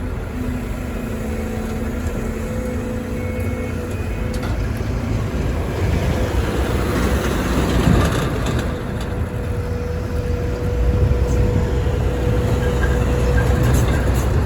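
Volvo EC300E excavator's diesel engine running under load, with a steady high tone over it. A broad swell of noise peaks about eight seconds in, and the engine grows louder near the end.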